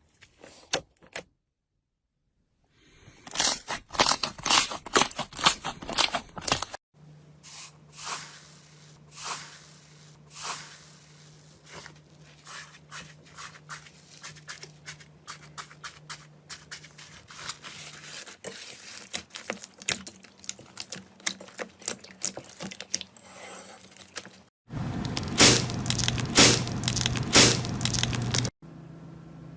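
Slime being squeezed, poked and stretched: dense crackling and popping clicks, in several short clips that cut from one to the next, the last one louder.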